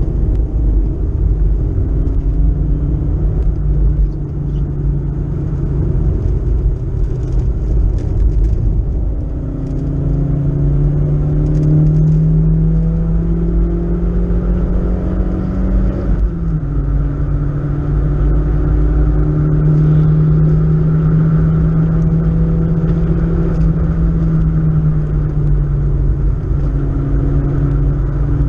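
In-cabin sound of a BMW E36 318is four-cylinder engine driven hard on track, under heavy road and tyre rumble. The engine note climbs for several seconds, drops sharply with an upshift about halfway through, then pulls steadily again.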